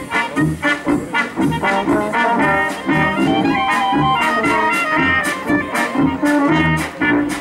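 Folk brass-band dance music playing with a steady, bouncing beat, the low bass notes falling about twice a second under the brass melody.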